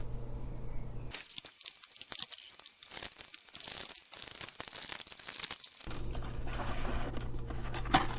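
Cardboard back panel of a cheap backlit message board being pried and torn open, a crackly tearing and scraping that lasts a few seconds from about a second in.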